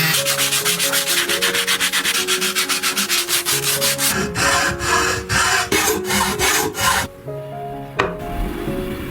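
Hand sanding strokes, rubbing rapidly back and forth at about six strokes a second, then slowing to about three heavier strokes a second and stopping about seven seconds in; a single sharp knock about eight seconds in. Background music plays underneath.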